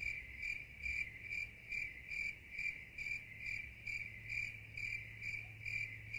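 Insect chirping in an even rhythm, about two and a half high-pitched chirps a second, over a faint steady low hum.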